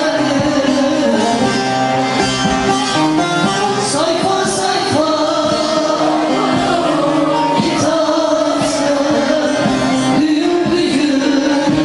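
Two saz (Turkish long-necked lutes) played together while a man sings a melody over them.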